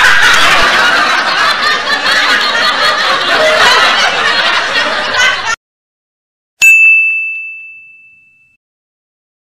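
Canned crowd laughter sound effect that cuts off suddenly after about five seconds, followed about a second later by a single bell ding that rings out and fades over about two seconds.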